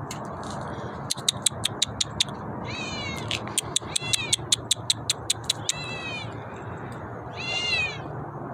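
Black kitten meowing three times in high, arching calls. Between the meows runs a fast series of sharp ticks, about six or seven a second.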